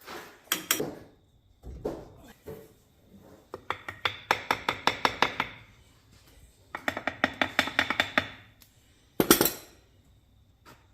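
Several runs of quick, sharp taps, about seven or eight a second, each run lasting one to two seconds, with a single harder burst near the end.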